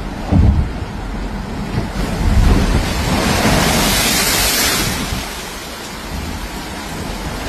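Sea waves crashing over a seawall onto a paved promenade: a wave breaks and its spray and wash rush over in a loud hiss that builds to a peak about four seconds in, then eases off. Low wind buffeting on the microphone underneath.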